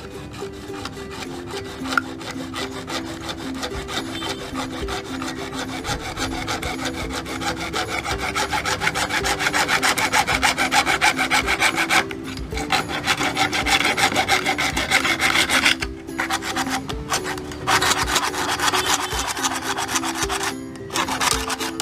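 A hacksaw blade sawing through PVC pipe in rapid short strokes, stopping briefly a few times, with background music underneath.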